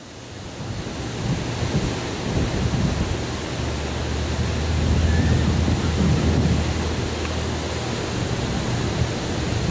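Wind buffeting the microphone with a low, unsteady rumble, over the steady wash of surf breaking on the beach; it swells about a second in.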